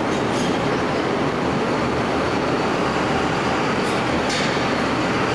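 Steady rumble of a pickup truck with a slide-in camper driving slowly up the steel loading ramp onto a car ferry, with a couple of faint clicks.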